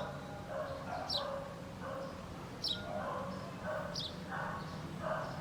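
Birds singing: one bird repeats a sharp, high, downward-sweeping chirp about every second and a half, four times, over softer chattering calls and a low steady hum.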